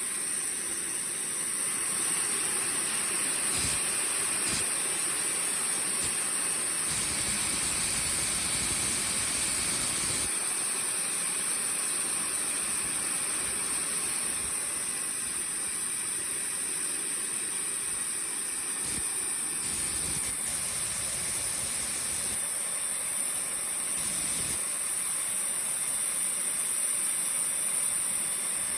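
IQ Hammer 90+ model turbojet engine running steadily: a jet hiss with a thin, high turbine whine that dips slightly about halfway through.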